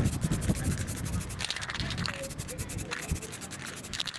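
Rapid, continuous scratching, like a stiff brush or tool scrubbing a hard surface.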